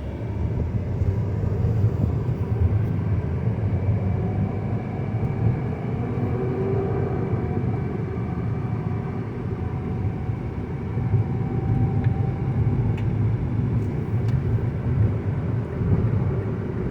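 Steady low rumble of engine and road noise inside the cabin of a 2009 Mazda 5 with an automatic transmission, as the car accelerates back onto the freeway.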